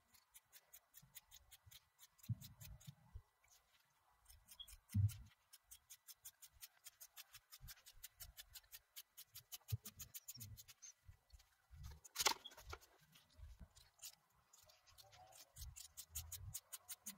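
Scissors cutting through fabric: a long run of faint, even snips at about four a second, with soft thumps of cloth being handled and one sharper click about twelve seconds in.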